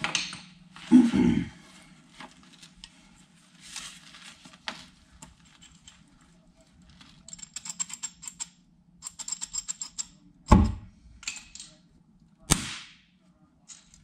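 Hand tools on the stuck, rusted steel tailgate latch linkage of a dump body: a thump about a second in, two runs of rapid clicking past the middle, then two sharp metal clanks near the end, over a low steady hum.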